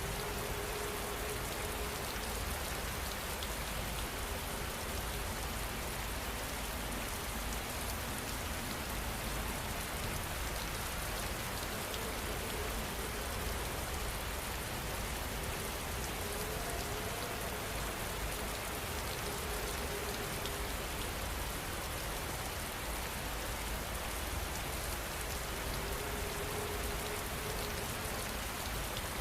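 Steady rain falling on a surface, a constant patter of drops, with a few faint short tones now and then.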